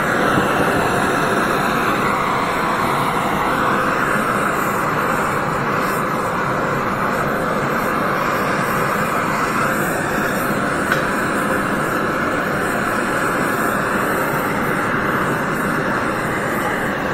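Oxy-fuel torch flame hissing steadily as it heats a cast iron exhaust manifold during brazing.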